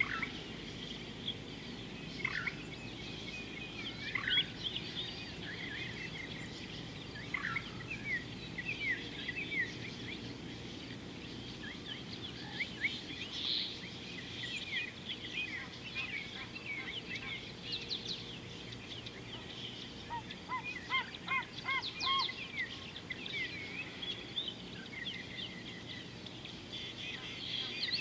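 Wild birds calling and singing: many short chirps and whistles, with a quick run of evenly repeated notes about two-thirds of the way through, over a steady hiss.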